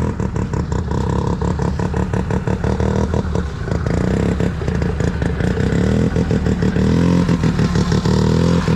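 Snowmobile engine running at low speed, its revs rising and falling a few times in the second half.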